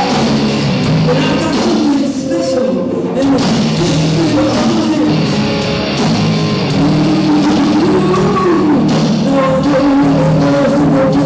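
Live rock band playing: a woman singing lead over electric guitar, bass and drums. The recording is poor and the sung words can't be made out.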